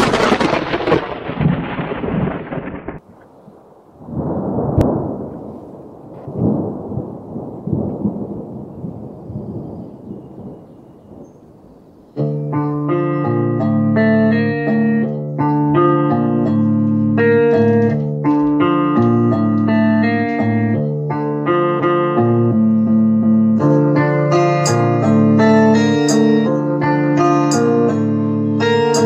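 Rumbling thunder that swells and fades for about the first twelve seconds. Then instrumental music cuts in abruptly with held chords and carries on.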